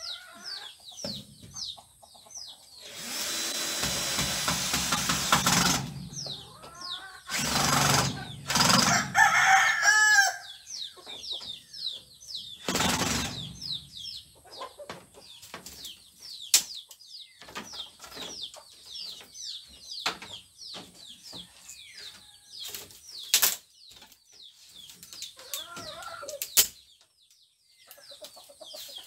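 Power drill run in three short stretches, about three seconds long from around 3 s in, again at 7.5–10 s and briefly near 13 s, fastening a woven bamboo wall panel to its wooden frame. Chickens in the background: thin chirping throughout, and a rooster crowing around 9 s.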